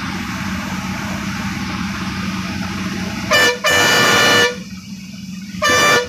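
KSRTC bus engine running with a steady drone heard from inside the cabin, then the bus horn sounds about three seconds in: a short toot, a longer blast and another short toot near the end, sounded as a warning at a blind hairpin bend.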